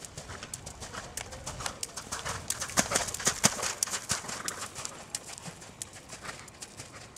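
Hoofbeats of a horse cantering on soft arena footing, growing loudest as the horse passes close about three seconds in, then fading as it moves away.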